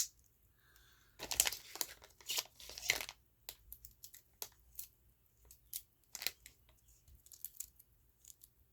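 A small piece of Rodico watchmaker's putty being pinched and pulled apart by gloved fingers. It gives a cluster of crinkly tearing sounds about a second in, then scattered light clicks and rubs.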